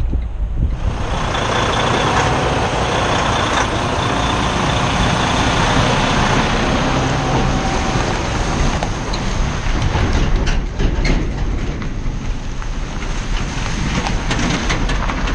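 Semi truck driving past close by: diesel engine running with a steady hiss through the first half, then scattered crackles and ticks as the rig rolls by.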